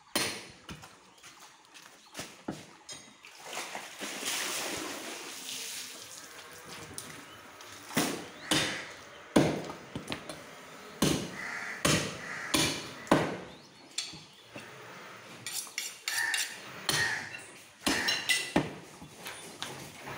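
Butcher's cleaver chopping beef bone on a wooden log chopping block: a string of sharp, irregular chops, some in quick pairs and others a second or more apart.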